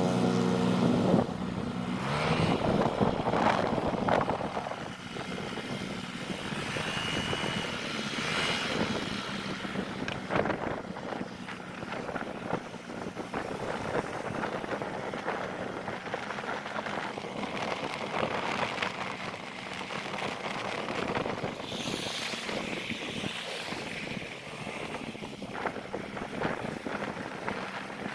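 Motor vehicle running on the road, a steady engine hum under rushing wind and road noise. A louder pitched engine or horn note sounds right at the start and fades within the first second or two.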